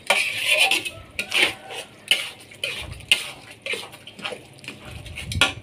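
Metal spatula clattering and scraping against a frying pan, in irregular strokes a couple of times a second, while stirring chilies, garlic and shallots frying in a little oil with melting sugar.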